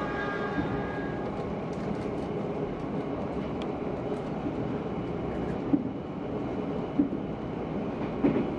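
A train running with a steady rumble and a few separate clunks, as the tail of its horn dies away about a second in.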